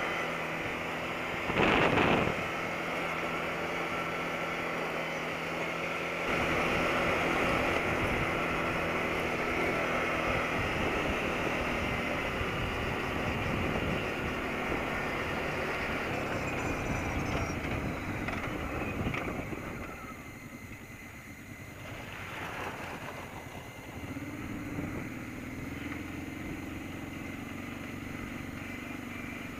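Kawasaki Brute Force ATV engine running steadily while riding a gravel trail, with a loud thump about two seconds in. The engine eases off around twenty seconds in, then runs on at a lower, steadier pitch.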